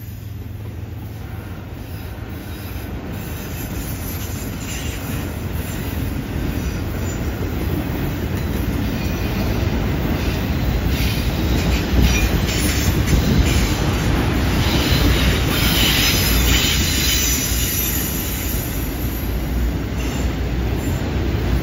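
Freight train of autorack cars rolling past on a curve, a steady rumble of wheels on rail that grows louder. From about ten seconds in there are spells of high-pitched wheel squeal from the curve.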